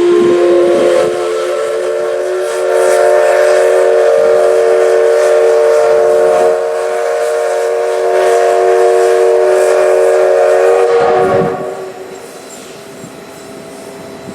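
C62 2 steam locomotive's whistle blown in one long blast of about eleven seconds, several steady tones sounding together as a chord. Its loudness dips twice before it stops.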